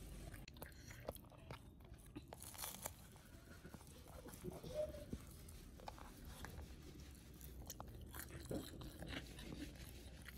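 Faint chewing and crunching of a hand-eaten meal of rice, fried tempeh and sambal, with scattered small clicks as fingers work the food on a plastic plate.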